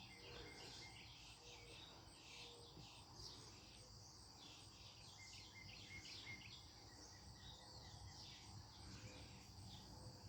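Northern mockingbird singing faintly in short, varied chirps and phrases, over a steady high-pitched insect drone.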